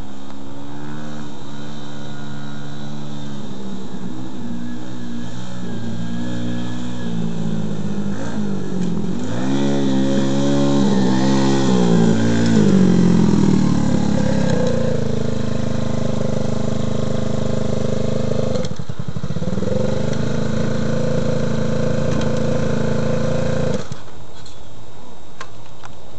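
SSR 110cc pit bike's single-cylinder four-stroke engine running while being ridden, its revs rising and falling and loudest about ten to thirteen seconds in. The engine note stops a couple of seconds before the end.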